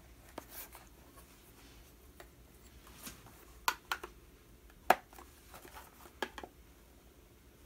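Small objects being handled on a bench: a few sharp clicks and taps scattered through, the loudest about five seconds in, with faint rustling between.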